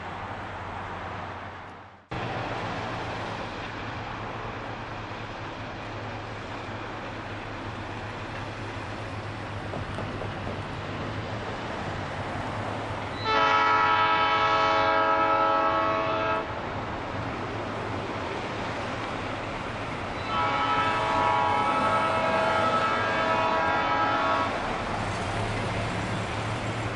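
Diesel switcher locomotive's air horn sounding two long blasts, a chord of several steady tones, the first about 13 seconds in and the second about 20 seconds in, blown for a road grade crossing. Steady rumble of the locomotive and road traffic between the blasts.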